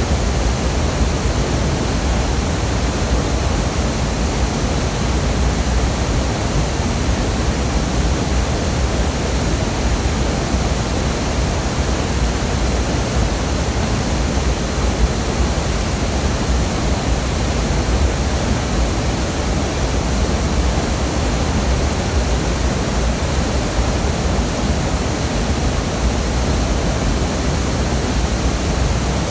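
Waterfall: a loud, steady rush of falling water with no change.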